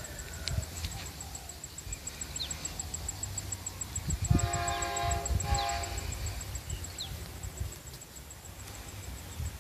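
A train horn sounds once for about two seconds, starting about four seconds in, over a low rumble. A few short bird chirps come in between.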